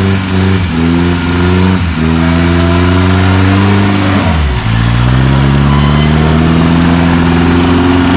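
Modified off-road 4x4's engine revving hard under load as its tyres spin in deep mud: a few quick throttle blips, then a long climb in revs that drops sharply about four seconds in before rising again and holding high.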